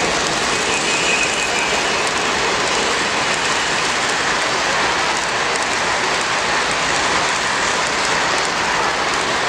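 O-gauge model freight train rolling close past, the metal wheels of its boxcars on the track making a steady, even rolling clatter.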